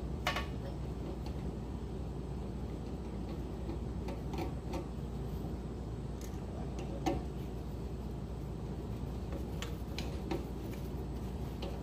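Scattered light clicks and taps of a screwdriver and fingers working on a well pump pressure switch's terminals and cover, irregularly spaced, over a steady low background hum.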